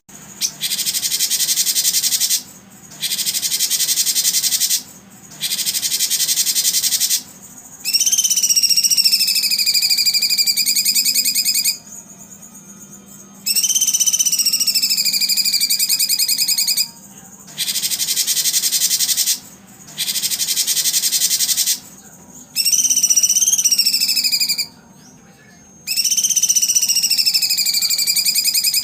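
Bird calls alternating with a dense, rapid buzzing trill, each lasting about two seconds and starting and stopping abruptly. The calls are drawn-out whistles that drop in pitch and then level off, with a clear overtone above.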